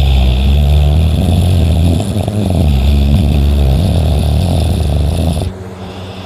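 A person snoring: one long, loud, low snore with a wavering pitch that stops suddenly about five and a half seconds in.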